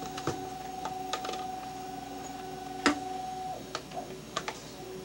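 OTIMA SAB11237 PTZ speed dome camera's pan-tilt drive motor whining at a steady pitch as the camera turns inside its dome, stopping about three and a half seconds in. Scattered clicks throughout, one sharper click just before the motor stops.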